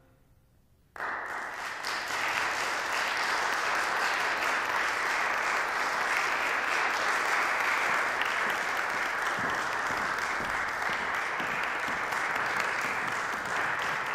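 Audience applause that breaks out suddenly about a second in, after a moment of near silence, and goes on at a steady level.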